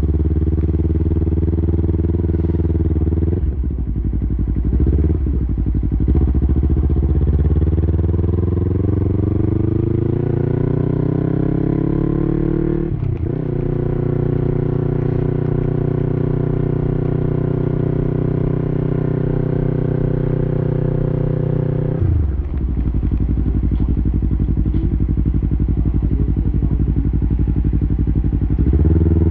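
Yamaha YZF-R3's parallel-twin engine through an Arrow Pro-Race full exhaust system under way: the revs climb steadily, break sharply as it shifts gear about 13 seconds in, hold steady, then drop suddenly about 22 seconds in and run at a lower steady pitch, with a short rise near the end.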